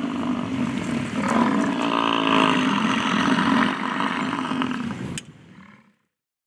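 American bison bellowing: long, deep, drawn-out roars that overlap and carry on for about five seconds before fading out.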